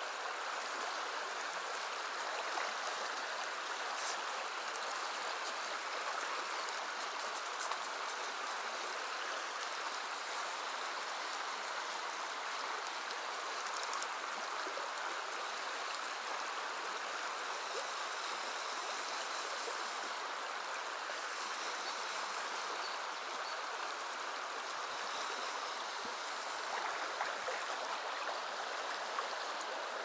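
Shallow river riffle rushing steadily over stones: an even, unbroken water noise.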